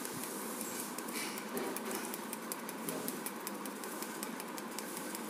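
Felt-tip marker pen tapping dots onto paper for pointillism shading: quick, irregular light taps, several a second.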